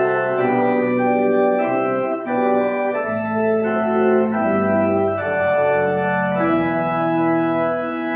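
Church organ playing held chords that change every second or so, in a slow hymn-like progression.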